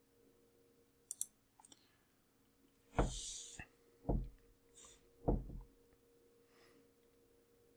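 A few faint sharp clicks, then three louder dull thumps about a second apart, over a faint steady hum: desk and mouse handling noises while the slide is changed.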